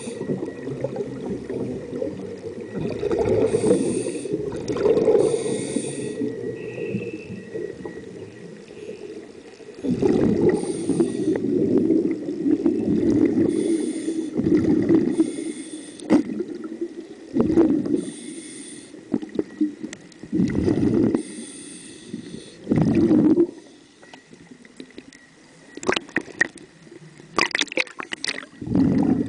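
Scuba diver breathing through a regulator underwater: repeated hissing inhalations alternating with bursts of gurgling exhaled bubbles, several breaths over the stretch. A rapid clatter of sharp clicks comes near the end.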